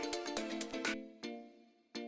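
Background music: short melodic notes played one after another, each dying away. They come quickly at first, then thin out and grow quieter in the second half.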